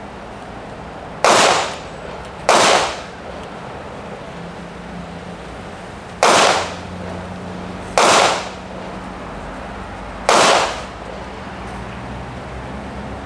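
Five single gunshots at uneven intervals, each a sharp crack with a short ringing tail. They come from another shooter on the range, not from the revolver on the table. The first two are about a second apart, and the last three follow at roughly two-second spacing.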